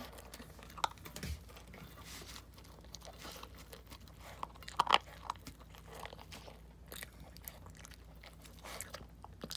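A pet crunching and chewing dry kibble, crushed fine, from a stainless steel bowl, with scattered sharp clicks. The loudest clicks come about five seconds in.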